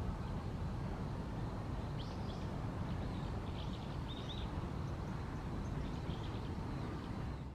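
Faint short bird calls, a few high chirps from about two to four and a half seconds in, over a steady low background rumble.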